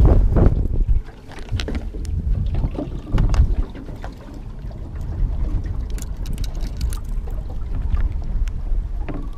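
Wind buffeting the microphone in gusts, loudest in the first second and again briefly a little after three seconds, then a steadier low rush, with scattered light ticks throughout.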